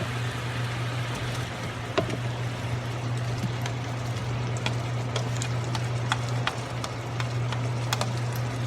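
Shrimp sizzling and bubbling in a pan of butter sauce, with scattered sharp ticks and a steady low hum underneath.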